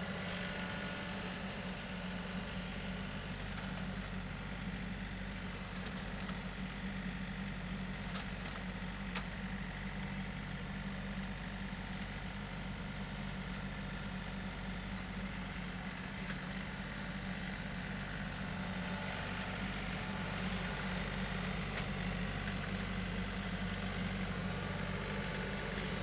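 Tractor engine running steadily at a constant speed, with a few light clicks about a third of the way in.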